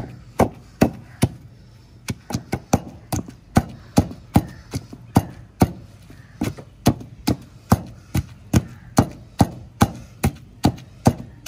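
Wooden pestle pounding mint leaves, onion and green chillies in a heavy stone mortar, crushing them into chutney by hand. A steady run of strikes, about two to three a second, with a short pause about a second in.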